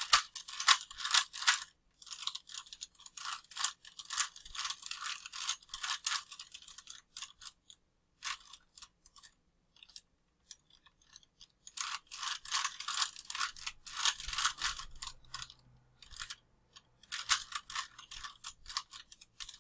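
Plastic 3×3 Rubik's cube being turned by hand: quick runs of clicking and clattering as the layers snap round, stopping for a few seconds near the middle before the turning resumes.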